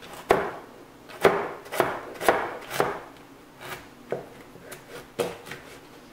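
Chef's knife chopping carrots on a plastic cutting board: about ten sharp knocks of the blade on the board, roughly two a second and slightly uneven.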